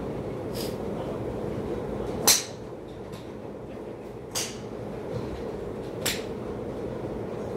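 Golf drivers striking balls: three sharp cracks about two seconds apart, the first and loudest a little over two seconds in, over a steady low hum.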